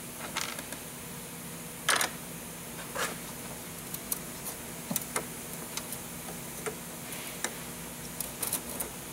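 Scattered sharp clicks and knocks of metal hose clamps and rubber fuel hoses being worked onto the metal canister of a new VW ALH TDI fuel filter. The loudest click comes about two seconds in, all over a faint steady hum.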